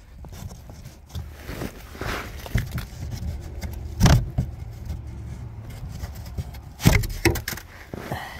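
Metal knocks and light clatter from hand-tool work under a car, with two loud knocks about four and seven seconds in, over a steady low rumble.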